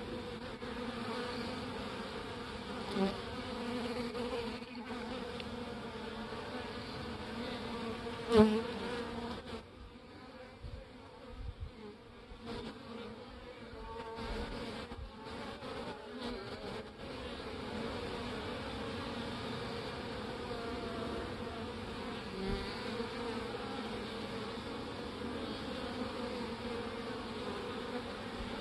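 Honey bees buzzing at a hive entrance as they fly in and out: a steady wing hum, briefly much louder about eight seconds in, with a quieter stretch just after.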